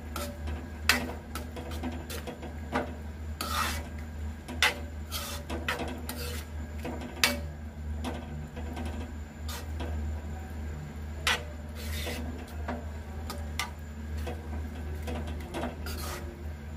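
A steel spoon scraping and knocking against a metal pan at an irregular pace while stirring thick, creamy noodles, over a steady low hum.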